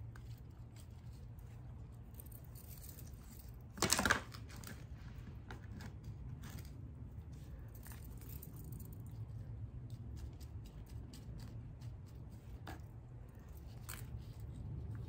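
Potting soil being scooped with a plastic scoop and worked in around plants by hand: soft scrapes, rustles and scattered light clicks, with one brief louder scrape about four seconds in.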